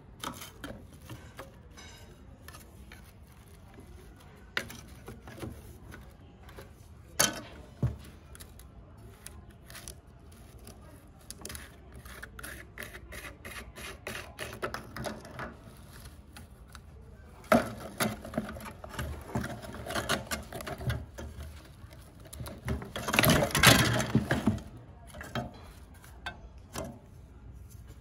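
Hands working a rusty wall fan's red plastic blade loose inside its metal wire guard: scattered clicks, knocks and scrapes of plastic against metal. A few sharp clicks come about a quarter of the way in, and the loudest, densest rattling and scraping comes well into the second half.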